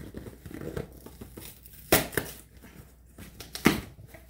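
Cardboard shipping box being opened by hand: the flaps rustle and scrape as they are pulled up. There are two short, sharp cardboard sounds, one about two seconds in and one near the end.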